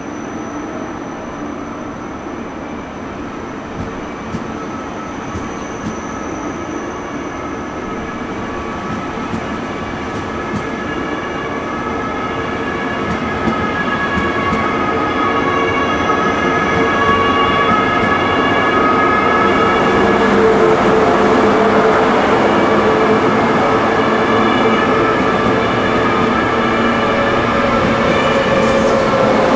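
ICE high-speed train moving slowly along the platform: a rumble of running gear with a steady whine of several tones over it, growing louder over the first twenty seconds and then holding.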